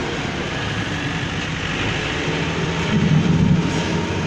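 Vehicle driving, with steady engine and road noise that swells briefly louder about three seconds in.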